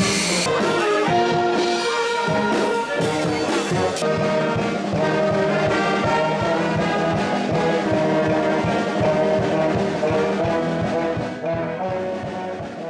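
Wind band of brass and woodwind instruments playing a tune in held chords. A loud hiss, which may be steam from the locomotive, stops sharply about half a second in, and the music grows quieter near the end.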